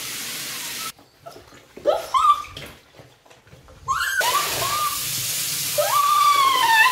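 Handheld shower head spraying water into a bathtub and over a wet shih tzu, cutting off about a second in and coming back on about four seconds in. Over it the dog whines in high rising and falling calls, once around two seconds in and again near the end.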